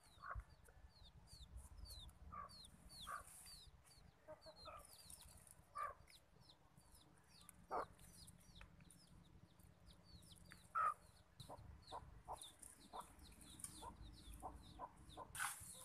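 Faint chickens: a steady string of high, falling peeps, two or three a second, with a few lower clucks. There is one sharp knock just before eight seconds in.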